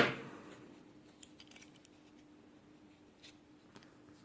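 A sharp metallic click with a short ringing decay as the small metal parts of a Zippo lighter insert are handled during disassembly, followed by a few faint ticks.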